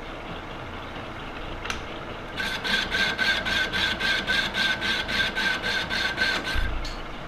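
Manual lathe running with a 10-inch cast iron handwheel spinning in it. About two and a half seconds in, the carbide insert starts cutting the cast crust: an even, rhythmic scraping cut about four to five times a second with a ringing tone from the cast iron. The cut stops near the end with a low thump as the lathe winds down.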